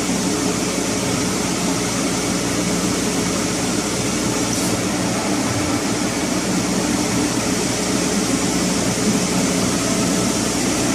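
Steady, loud drone of a running marine inert gas generator, its combustion-air blower and burner, with a continuous low hum.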